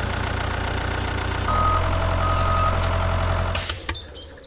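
Tractor engine running steadily; it gets louder about a second and a half in, two short high beeps sound, and the engine dies away near the end.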